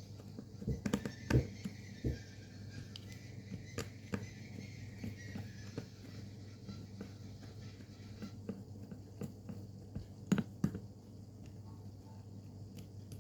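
Objects being handled and set down: scattered light knocks and clicks over a steady low hum, with the loudest knocks about a second in and again about ten seconds in.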